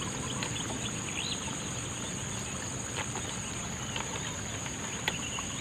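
Steady high-pitched insect trill outdoors, with a few faint short chirps and a couple of light clicks.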